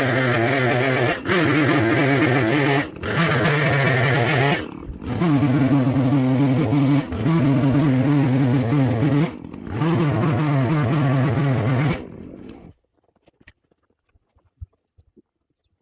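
Bobcat 753 skid steer's diesel engine running at high revs, its note shifting and briefly dropping several times. The sound stops about thirteen seconds in.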